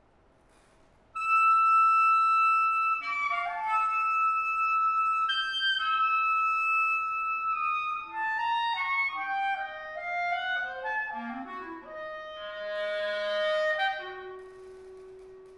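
Solo B-flat clarinet playing unaccompanied: a loud high note enters suddenly about a second in and is held, then quicker notes step downward, a middle note is held, and a soft low note fades out near the end.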